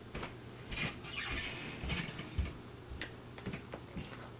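Close mouth sounds of chewing a mouthful of noodles and sucking food off the fingers: a string of short, irregular smacks and clicks.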